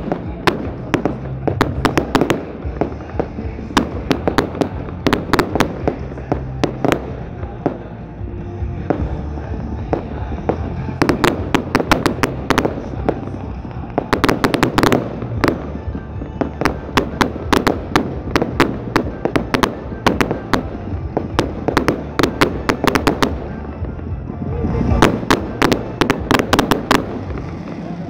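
Aerial fireworks going off continuously in volleys of sharp cracks and bangs, most densely about halfway through and again near the end. Music plays underneath.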